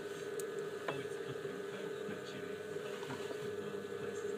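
Electric potter's wheel running with a steady hum, with a couple of light clicks in the first second.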